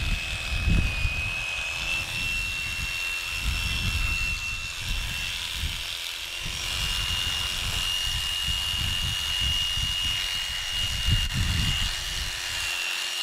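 Electric sheep-shearing clippers running with a steady high whine while cutting a strip of wool off a lamb's back.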